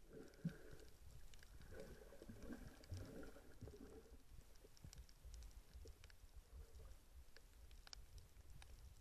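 Faint muffled underwater sound heard through an action camera's waterproof housing: a low rumble with scattered small clicks and crackles, and a muffled murmur during the first few seconds.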